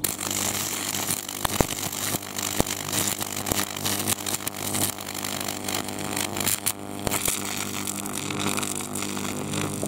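High-voltage arc from a Portazap 4400 wasp zapper, buzzing steadily with a low hum and crackling with many sharp snaps as it burns through a paper wasp nest and its larvae.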